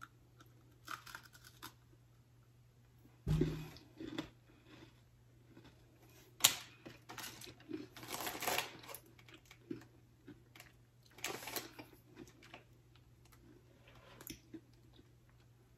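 Chocolate Oreo sandwich cookie being bitten and chewed: scattered, irregular crunches and mouth noises, with a sharp crack about six and a half seconds in.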